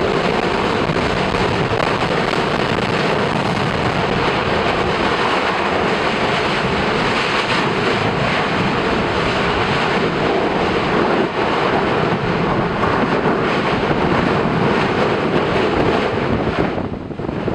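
Yasur volcano's vent in Strombolian eruption: a loud, steady roar of gas jetting out and throwing incandescent spatter, easing off near the end.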